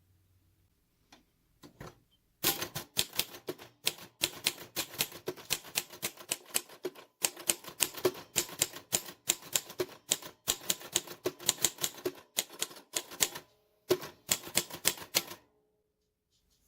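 Royal Futura 800 manual typewriter being typed on: a few scattered clicks, then rapid keystrokes of typebars striking the platen, several a second for about eleven seconds. After a brief pause comes a shorter burst of keys.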